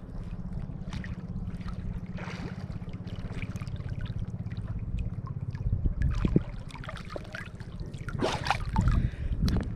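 Water splashing and sloshing, over a steady low throbbing. Several sharper splashes come in the second half.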